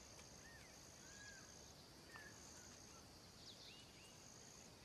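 Faint natural ambience: an insect trilling high and steady in three long pulses, with a few short, thin bird chirps scattered through.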